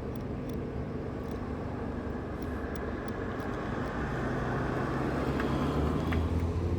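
A motor vehicle's engine running, a steady low rumble that grows louder about four seconds in. A few faint small clicks come near the end as the number dials of a combination padlock are turned.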